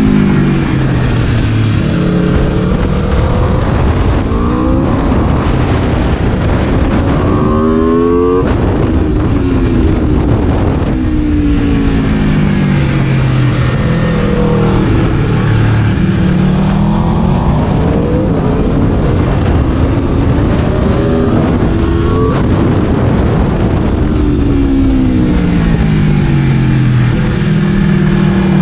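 Aprilia RSV4's V4 engine being ridden hard: the revs climb in steps as it pulls through the gears, then fall away as it slows, several times over.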